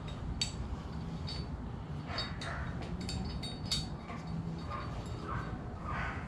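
Dogs barking and snarling in a dog fight next door, heard at a distance. Several sharp metallic clinks of bolts being handled sound in between.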